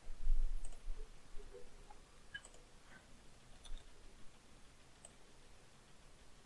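Faint computer mouse clicks, a handful spaced about a second apart, after a low thump in the first second.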